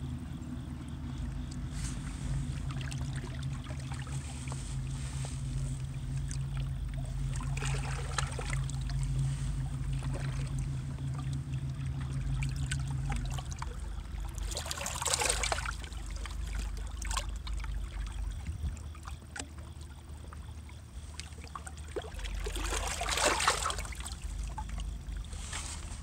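Ohio River water washing against shoreline rocks over a low steady rumble, with two louder splashes, one about halfway through and one near the end. A low steady hum runs under the first half and then stops.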